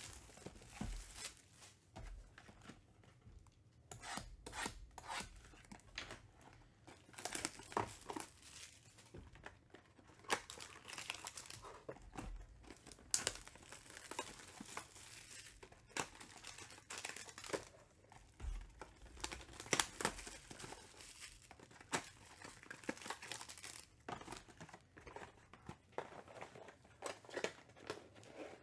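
Trading-card pack wrappers being torn open and crinkled by hand, in irregular crackles and rustles.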